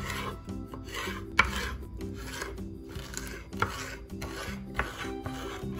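Chef's knife slicing soft roasted, peeled chiles into strips on a bamboo cutting board: each stroke a short scrape and tap of the blade on the wood, about two a second, over quiet background music.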